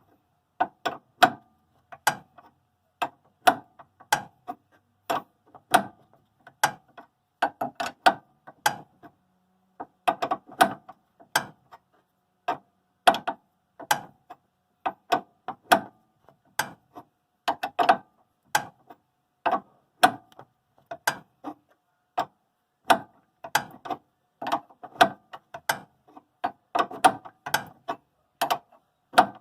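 Ratchet wrench clicking in short irregular runs, stroke after stroke, as it turns a stubborn stabilizer-link nut.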